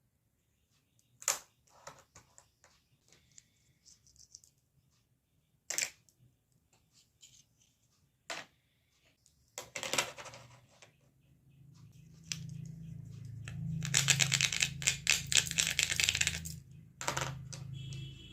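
Plastic pieces of a toy makeup set being handled, with sharp separate clicks and taps. About ten seconds in, the handling gets busier, with rapid clicking and rattling over a low steady hum.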